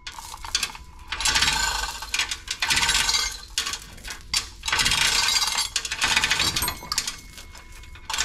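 Manual chain hoist lowering an engine: the steel chain rattles and clinks through the hoist in three runs of a second or two each, with short pauses between.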